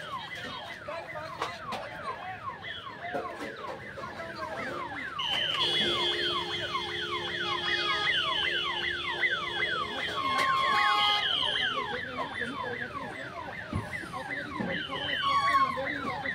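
Electronic warning siren sounding continuously, its pitch sweeping over and over at about four sweeps a second. A steady higher tone joins it for several seconds in the middle.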